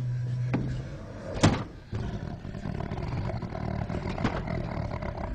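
Horror-trailer sound design: a low steady drone, then a single sharp whooshing hit about a second and a half in, followed by a low dense rumble with a few faint clicks.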